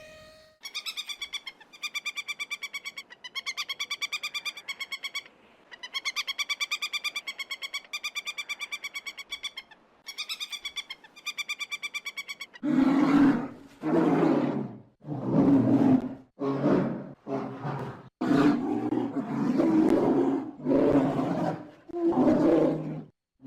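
A high, rapidly pulsing call in several long phrases, then about halfway through a big cat takes over, roaring and growling in about eight loud, rough bursts.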